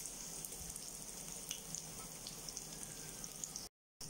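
Chopped onions frying in hot oil in a pan: a faint, steady sizzle with scattered small crackles. The sound cuts out for a moment near the end.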